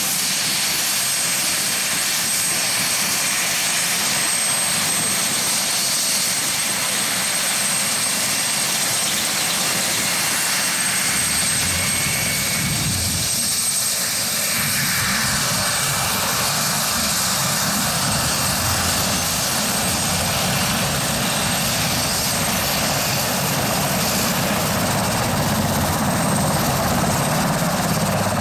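UH-60 Black Hawk's twin turboshaft engines running with the rotors turning on the ground: a steady high-pitched turbine whine over the rush of the rotors.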